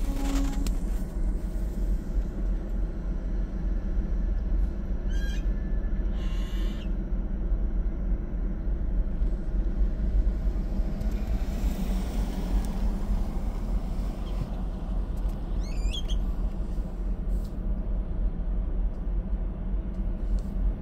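Steady low rumble of a car heard from inside its cabin, with brief high squeaky chirps about five and sixteen seconds in and a short hiss between them.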